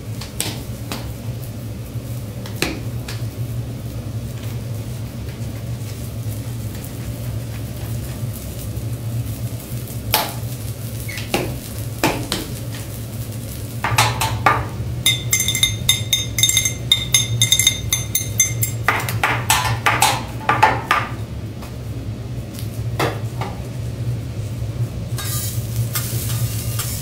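Metal spatulas clinking, tapping and scraping on a steel teppanyaki griddle, with scattered sharp clicks, a ringing metallic tone for a few seconds past the middle, and a quick run of clatter just after it. A steady low hum sits underneath.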